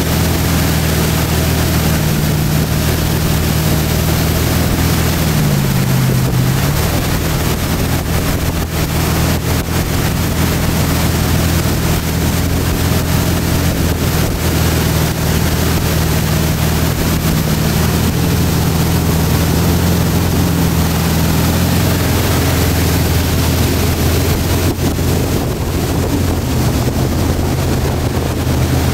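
Tow boat's engine running steadily at speed under a rush of wind and water. Its pitch dips briefly and climbs back about six seconds in.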